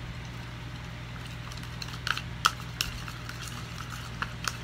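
Plastic spoon stirring thickening slime (glue mixed with OxyClean laundry soap) in a small plastic bowl, giving a few sharp clicks and taps against the bowl about two seconds in and again near the end.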